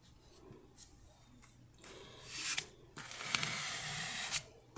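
Plastic card scraping spackling paste and spreading it across a plastic stencil: a short scrape about two seconds in, then a longer spreading stroke from about three seconds in.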